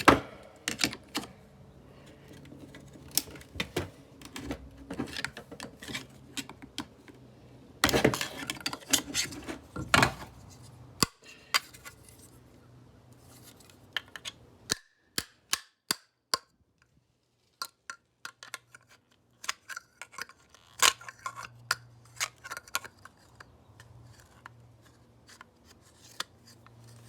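Irregular sharp clicks, knocks and clatter of the plastic and metal parts of a handheld vacuum being handled and pried apart during disassembly, with a couple of denser bursts of clattering about a third of the way in.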